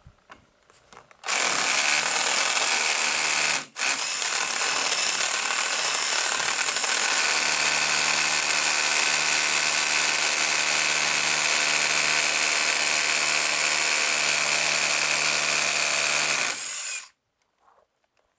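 Bosch SDS rotary hammer drilling a 12 mm bolt hole into a concrete wall. It starts about a second in, stops for a moment after a couple of seconds, then runs steadily until it cuts off shortly before the end.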